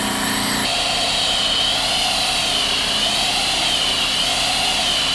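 Electric pressure washer spraying foam through its lance: a steady hiss with a wavering high whine, starting just under a second in.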